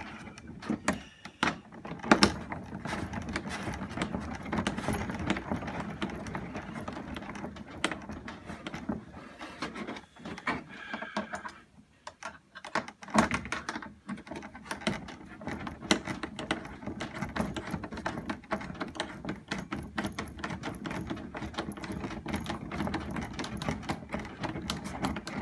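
Steady handling noise with many small clicks and taps throughout, a few of them louder: metal rings, bolts and nuts being fitted and tightened to join the sections of a paper sculpture.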